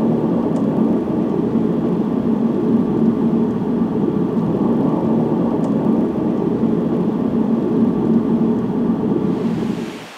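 Car driving along a road, heard from inside the cabin: a steady drone of tyre and engine noise that cuts off near the end.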